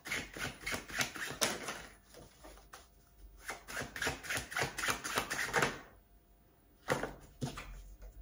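A deck of tarot cards being shuffled hand to hand, the cards flicking against each other in quick rattling clicks. There are two spells of rapid shuffling with a short pause between them, then a couple of single card snaps near the end.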